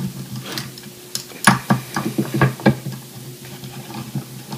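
Light metallic clicks and ticks at irregular spacing as a T-handle hex key works the screws out of a three-blade Max-Prop feathering propeller's hub, the metal key tapping and turning in the screw heads.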